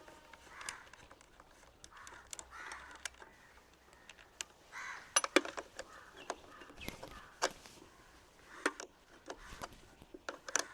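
Sharp metallic clicks and ticks of a spanner working on the speedometer console's bolts and nuts. Crows caw several times in the background.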